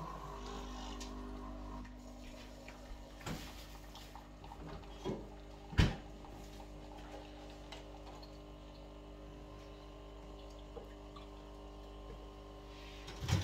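A steady hum with a few held tones, like a kitchen appliance or extractor fan running, under scattered knocks and clatters of cooking work; the sharpest knock comes about six seconds in and another just at the end.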